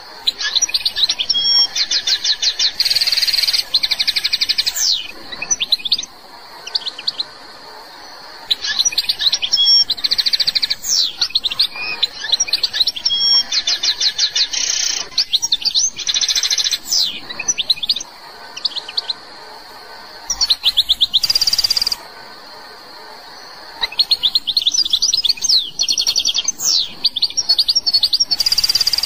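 Algerian goldfinch singing: phrases of rapid twittering and trills a few seconds long, broken by short pauses.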